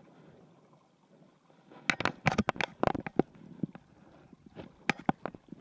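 Short, sharp water splashes and slaps in quick succession from about two seconds in, with a few more near the end, as a landing net holding an American shad is dipped into the river.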